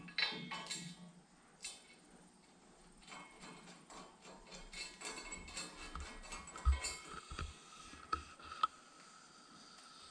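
Small metal clinks, clicks and rattles of a steel pump bracket and its bolts being fitted to a steel car-lift post, with a heavier knock about two thirds of the way through.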